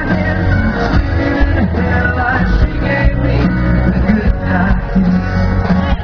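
Live country band performance heard from within the crowd: a man sings a ballad over piano and acoustic guitar, with the full band playing steadily.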